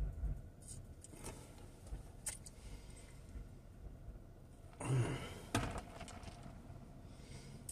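Mouth sounds of a person tasting a drink: a few soft clicks and lip smacks, and a short closed-mouth hum about five seconds in, over a low car-cabin rumble.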